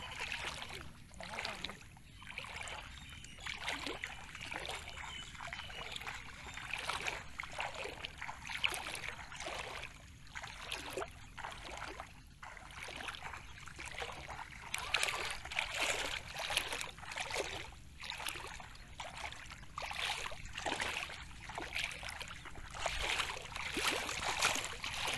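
Water sloshing and splashing around legs wading through shallow muddy water, a surge at each step, about one a second.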